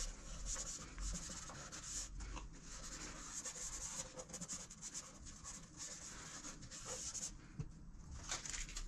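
Quiet, scratchy rubbing in short, irregular strokes as a primer applicator is wiped along a metal fender bar to prep it for adhesive tape.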